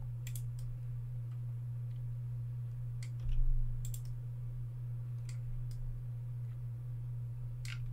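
Scattered clicks of a computer mouse and keyboard, single and in quick pairs, over a steady low hum.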